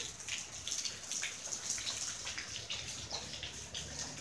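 Rain falling steadily on pavement: a constant hiss with many small drop impacts.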